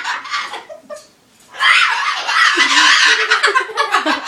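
Pet parrot squawking and screeching in loud, harsh bursts. There is a short lull about a second in, then a longer, louder stretch of screeching from about a second and a half in.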